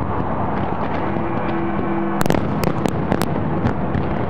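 Fireworks display: continuous overlapping bangs of bursting shells, with a cluster of sharp cracks a little past the halfway point.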